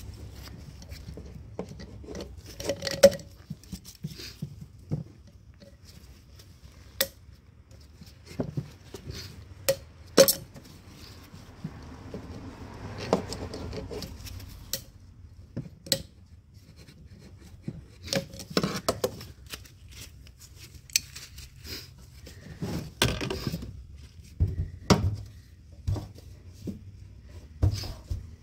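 Scattered metallic clicks, clinks and knocks of hand tools and parts being handled while fitting a heater hose connector in an engine bay, with a stretch of rubbing near the middle.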